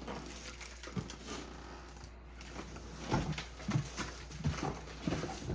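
Cardboard box being handled and turned: rustling with a scatter of light knocks and taps, a cluster of them in the second half.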